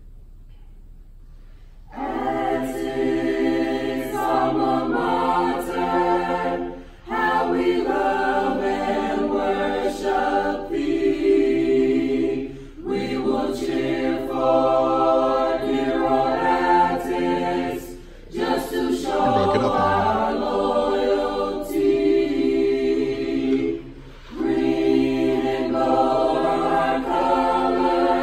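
A mixed-voice high school choir singing an alma mater a cappella in several-part harmony. The choir comes in about two seconds in and sings in phrases with short breaks for breath between them.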